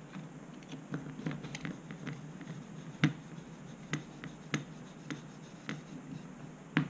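Hand hex screwdriver driving small 3x10 mm screws into a carbon-fibre drone frame's top plate: a run of light clicks and taps from the driver in the screw heads. They come about once every half second from about three seconds in, with the sharpest click about three seconds in and another just before the end.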